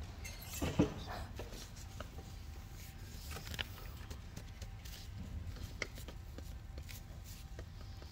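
Hushed room ambience with a low steady hum and scattered small clicks and rustles from people standing and sitting, and one short louder sound about a second in.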